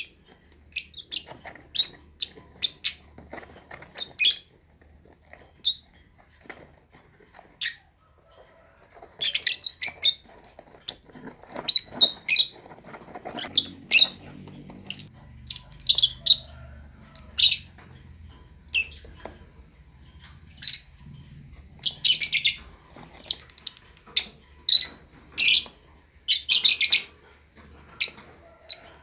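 Fischer's lovebird chirping: scattered single sharp chirps at first, then, from about a third of the way in, denser bursts of rapid chattering, some lasting about a second.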